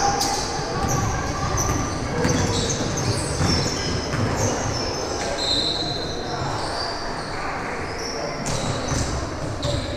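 Indoor basketball game: sneakers squeaking on the court many times over and a ball bouncing, with voices echoing in the gym.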